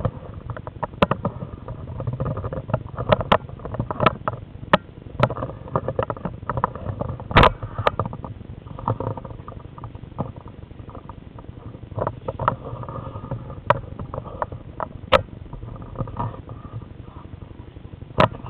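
Handling noise from a small camera fixed to a wooden practice sword (bokken) as it is moved through a slow technique: a low rumble with irregular clicks and knocks, the loudest about seven seconds in.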